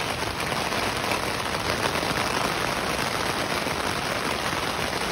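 Steady rain falling, a loud even hiss with no let-up.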